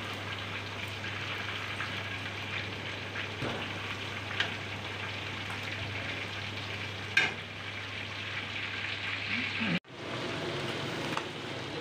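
Chicken pieces deep-frying in a large metal pot of hot oil, with a steady sizzle. A metal ladle stirs them and clinks sharply against the pot twice. The sound breaks off for a moment near the end.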